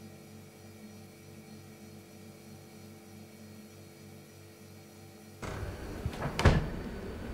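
A steady low hum made of several held tones, pulsing slightly in the bass. It cuts off abruptly about five seconds in, giving way to room noise and a single loud knock about a second later.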